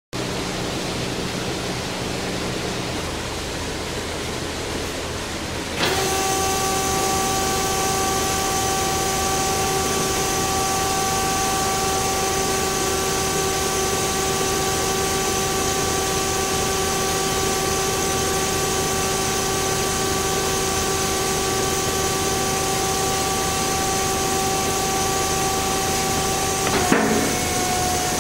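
DoAll C4100NC horizontal band saw running with a steady machine hum. About six seconds in it gets louder as a steady whine of several pitches joins it. Near the end there is a brief knock and the whine changes.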